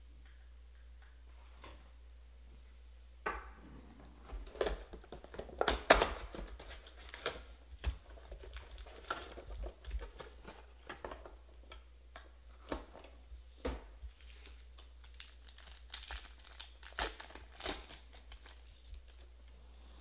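Plastic wrapping and foil card-pack wrappers crinkling and tearing as a Panini Prizm hobby box of football cards is opened and its packs ripped open. Irregular rustles and sharp snaps start about three seconds in.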